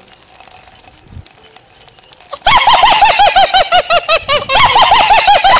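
Steady jingling of small bells, then about two and a half seconds in a loud burst of rapid, repeated honking calls from a flock of birds breaks in suddenly.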